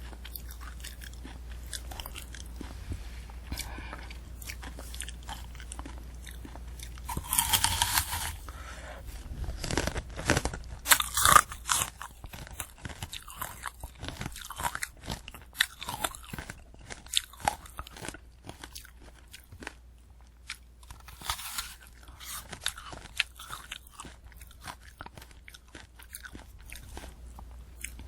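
Close-miked eating of a candy apple: the hard red sugar shell cracking and crunching under the teeth, then wet, crisp chewing of the apple. The loudest bursts of crunching come about a quarter and a third of the way in, with a steady low hum underneath.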